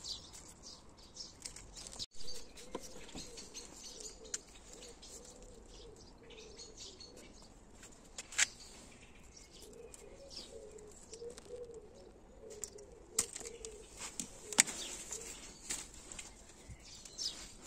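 A pigeon cooing in low, wavering phrases over small birds chirping, with a few sharp snips of pruning shears.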